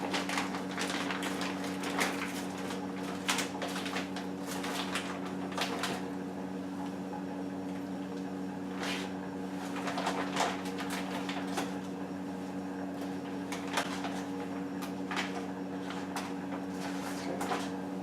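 Pot of chicken stock with spaghetti and frozen gyoza cooking on the stove: scattered sharp clicks and knocks, irregular, over a steady low hum.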